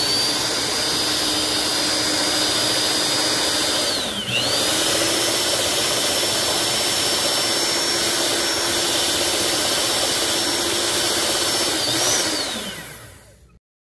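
Electric stand mixer running at speed, its twin beaters whipping a frothy white mixture in the bowl with a steady motor whine. The whine dips briefly about four seconds in and comes back up. Near the end it rises for a moment, then winds down and stops.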